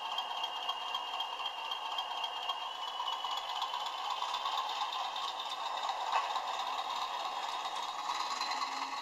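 Model diesel locomotive with a DCC sound decoder running on the track: the decoder's diesel engine sound from its small onboard speaker, mixed with the rattle of wheels and mechanism on the rails. A tone rises slowly in pitch from about three seconds in.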